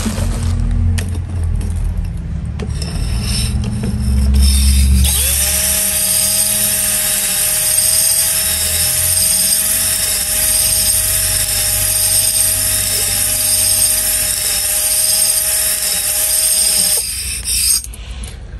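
Cordless drill spinning a cylinder hone inside a 250cc quad's glazed cylinder: a steady motor whine over the scrape of the hone stones on the bore, starting about five seconds in and stopping shortly before the end. The honing puts cross-hatching back on the glazed cylinder wall. Before the drill starts there are handling knocks and rubbing.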